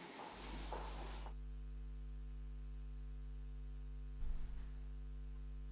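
Steady electrical mains hum from the sound system, a low buzz that starts about a third of a second in and holds unchanged. Footsteps on a hard floor are heard in the first second, and a single low thump about four seconds in.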